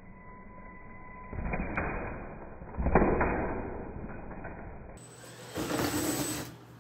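Mini RC monster truck's electric motor revving as it accelerates, with a sharp knock about three seconds in as it strikes the cardboard box ramp. Near the end comes another burst of motor and tyre noise as it climbs onto the box.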